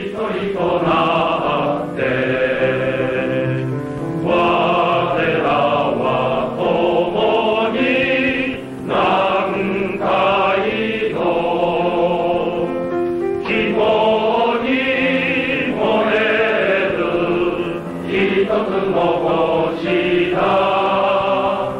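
A men's choir singing a company song in unison, in long phrases with brief pauses between them.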